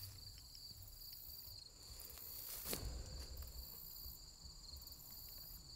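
Insects chirring steadily in two high pitches over a low rumble, with one sharp knock about two and a half seconds in.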